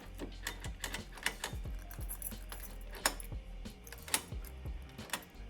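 Small metal lock parts clicking and clinking as they are handled and fitted together, a string of irregular sharp ticks over a low steady hum.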